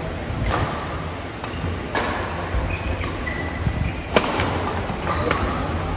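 Badminton rally: rackets striking the shuttlecock three times, about one and a half to two seconds apart, each hit sharp and ringing in a large indoor hall.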